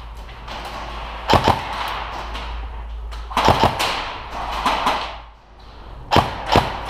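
Airsoft gunfire: three short bursts of two or three sharp cracks, about two seconds apart, with some echo from the large room.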